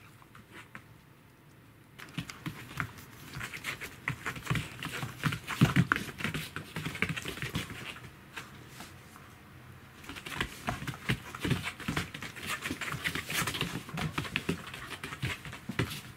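A Pembroke Welsh corgi and a cat play-fighting: a rapid clatter of paws and claws scuffling on a wooden floor. It starts about two seconds in, eases off briefly in the middle, then picks up again.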